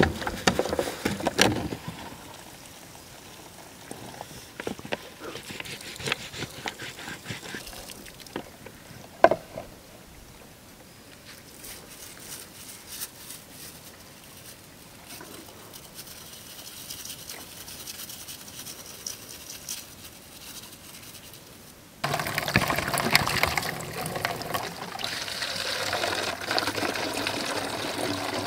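Water pouring and splashing, starting abruptly near the end after a long quiet stretch with scattered small knocks and clicks.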